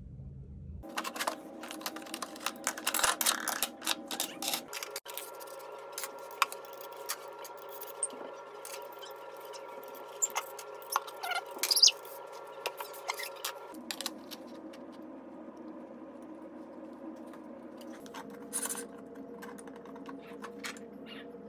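Irregular light clicks, clacks and taps of a metal cabinet-hardware drilling jig being handled and adjusted: sliding stops and rulers knocking together and thumbscrews being worked. The sharpest click comes about twelve seconds in, over a faint steady hum.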